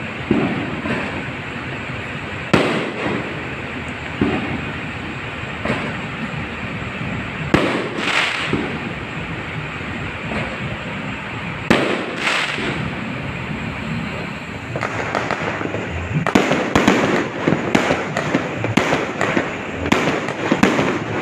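Fireworks going off: a steady din broken by separate sharp bangs every second or two. Near the end this turns into a dense, rapid barrage of bangs.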